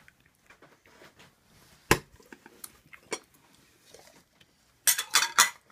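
A few sharp clicks and knocks of tableware on a table: one about two seconds in, a lighter one a second later, and a quick cluster of clicks near the end, with quiet between.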